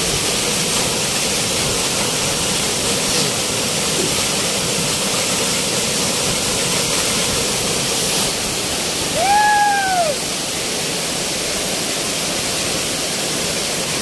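Waterfall rushing steadily into a rocky plunge pool. About nine seconds in, a single short call rises and falls in pitch over the rush of water.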